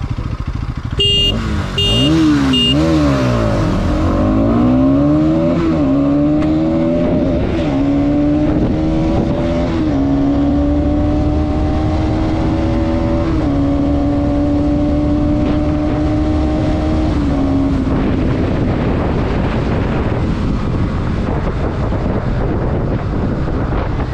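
Bajaj Pulsar NS200 single-cylinder engine at a full-throttle drag launch. After three short high beeps the engine is blipped, then it pulls hard and climbs in pitch through about four gear changes, the revs dropping at each shift. It holds a steady high note, then falls away near the end as the throttle closes, leaving wind noise.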